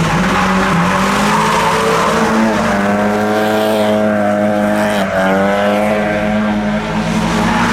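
A car engine held at high revs while the tyres skid on the road, as a car does handbrake skids around a roundabout. The engine pitch stays steady with two brief dips, about a third and two thirds of the way through.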